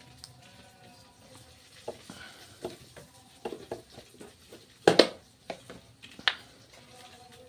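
Spatula knocking and scraping against the pan while water spinach is stir-fried, with light frying in the background. The knocks come irregularly, the loudest a quick double knock about five seconds in.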